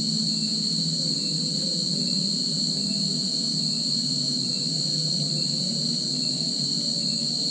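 Steady, unbroken chorus of shrill insects, a high continuous drone, over a low hum with faint wavering tones.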